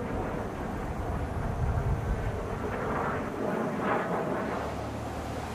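Distant jet noise from Kawasaki T-4 trainers' twin turbofan engines flying overhead: a steady noise that grows louder in the middle of the stretch.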